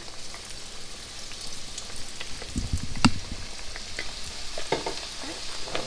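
Breaded catfish fillets frying in hot oil in a skillet: a steady sizzle with scattered pops, the sign that the oil is hot enough. A dull knock about three seconds in is the loudest sound.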